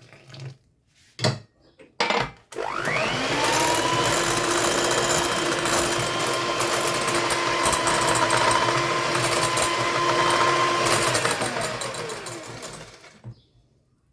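Electric mixer beating a cake batter of eggs, sugar, oil and lemon juice: the motor whines up to speed about two and a half seconds in, runs steadily for about nine seconds, then winds down near the end. A few short knocks come before it starts.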